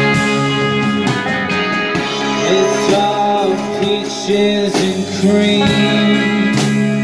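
A rock band playing live: electric guitar, bass guitar and drum kit, with a sung vocal over them.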